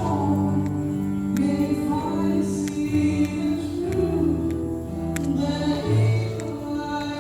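Music with a singing voice over held chords that change about every second.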